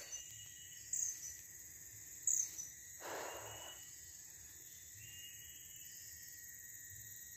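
Steady high-pitched drone of insects in swamp forest, with two short sharp high chirps about one and two seconds in and a brief burst of noise about three seconds in.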